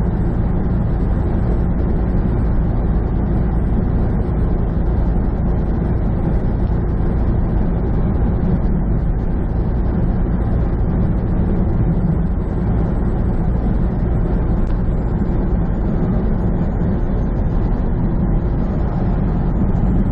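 Semi truck's diesel engine droning steadily at highway cruise, with road and tyre noise, heard from inside the cab.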